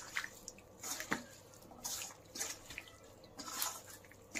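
A bare hand mixing raw chicken pieces with sliced onion, ground spices and salt in a steel bowl: wet mixing sounds in irregular short strokes, roughly two a second.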